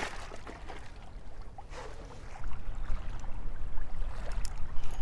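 Wind buffeting the microphone, a low rumble that grows louder about halfway through, with a few light clicks near the end.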